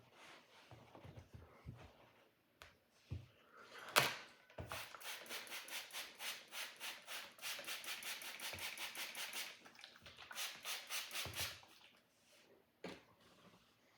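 A sword blade being sharpened: a sharp knock, then a long run of quick, even rubbing strokes, about five a second, and a shorter run after a brief pause.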